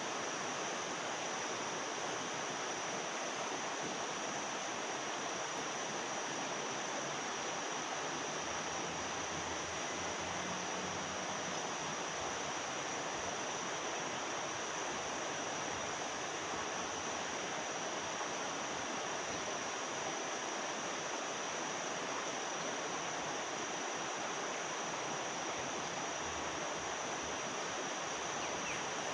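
Steady rushing of fast-flowing river water, a river running high after a flood, with a steady high-pitched whine above it.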